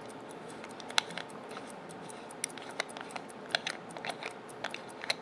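Small irregular clicks and scrapes of a gold-filled pocket watch case being handled as its front bezel is unscrewed and taken off, with one sharper click about a second in.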